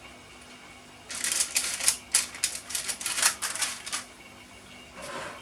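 Two metal tablespoons clicking and scraping against each other as cookie dough is portioned off with them, a rapid irregular run of clicks for about three seconds, starting about a second in.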